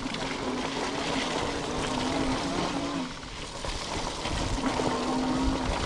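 Electric bike's motor whining steadily under pedal assist, cutting out for about a second and a half around the middle and picking up again near the end, over the rush of tyres on a wet dirt trail.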